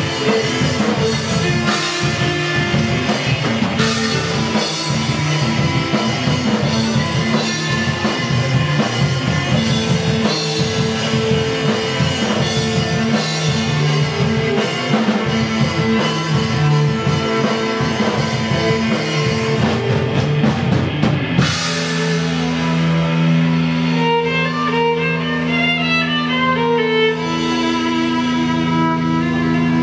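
Instrumental rock played live on drum kit, electric guitar and violin. About two-thirds of the way through, the drums stop suddenly, leaving held guitar notes under a bowed violin line.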